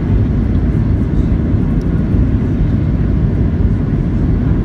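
Steady low rumble inside the cabin of a Boeing 737-700 on final approach with its flaps extended: its CFM56 engines and the airflow, heard from a seat over the wing.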